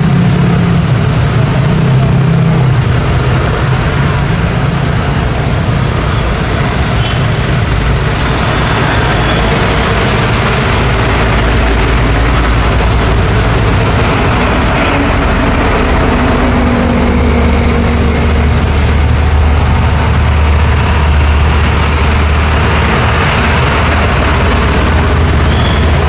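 Busy street traffic: motor scooters and cars passing close by in a steady stream, with a light cargo truck's engine going by about halfway through.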